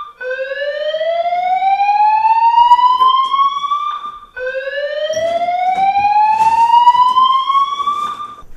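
Fire alarm sounding a slow rising whoop: two long upward sweeps of about four seconds each, with a brief break between.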